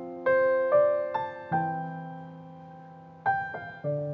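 Slow background piano music: single notes and chords struck one after another, each left to ring and fade, with a pause of about a second and a half near the middle.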